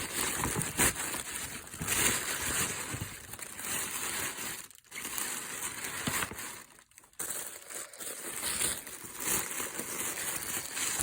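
Tissue paper rustling and crinkling as it is handled and crumpled, with short pauses about five and seven seconds in.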